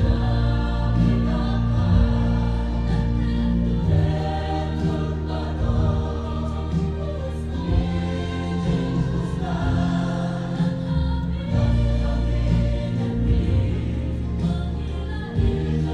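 Mixed choir of men's and women's voices singing a gospel-style choral piece, with long held notes and a strong low part underneath.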